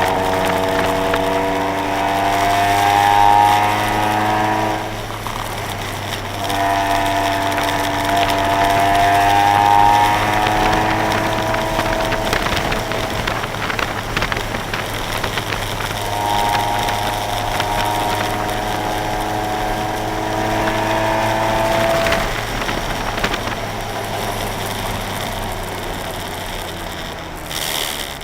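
A car's engine heard from inside the cabin on track, rising in pitch under hard acceleration three times and dropping off between pulls as the driver lifts for braking and corners. A steady low drone and road noise run underneath.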